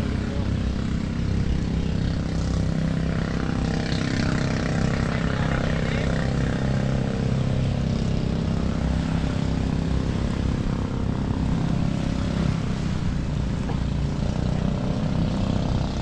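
An engine running steadily, a low drone that holds the same pitch throughout.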